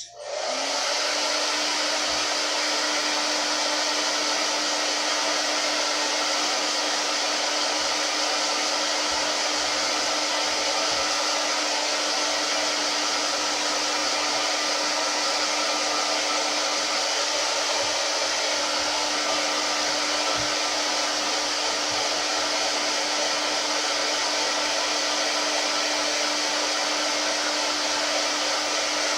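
Turbo Styler hand-held blow dryer coming up to speed right at the start, then running steadily: an even rush of air with a constant low hum from its motor.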